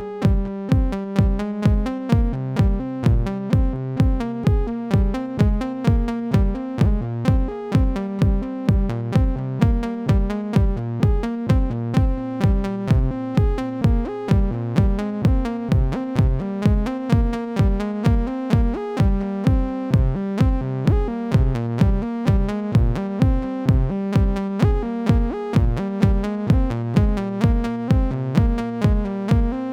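Make Noise modular synthesizer jam: a steady electronic kick-like pulse about twice a second under pitched tones from the DPO dual analogue oscillator that step between notes.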